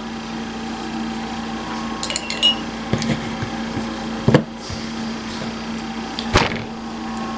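A few scattered light knocks and clinks of small objects being handled, over a steady low hum. The sharpest knocks come a little past halfway and again near the end.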